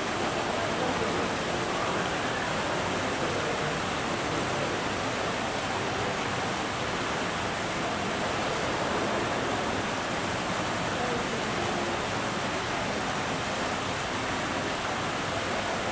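Steady rushing background noise that does not change in level, with faint voices murmuring underneath.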